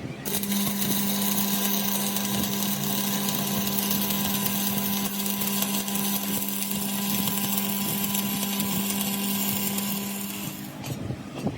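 Electric power tool running at a steady speed, a constant high hum with a hiss. It starts just after the beginning and winds down about ten and a half seconds in.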